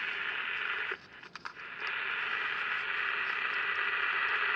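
Candle 10-transistor pocket radio's speaker giving off a steady crackly hiss with no station coming through. About a second in, the hiss cuts out for most of a second with a few crackles, then comes back. A hiss like this, with the amplifier working, is a common sign that the local oscillator is not oscillating properly or at all.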